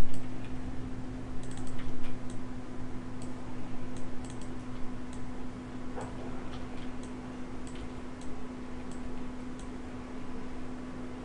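Scattered, irregular clicks of a computer mouse and keyboard over a steady low electrical hum, with a low bump right at the start.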